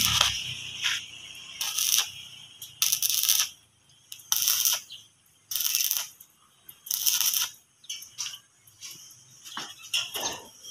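Stick (electrode) welder's arc crackling in a string of short bursts of about half a second each, one every second or so, as the joints of a steel gate frame are tack- or stitch-welded.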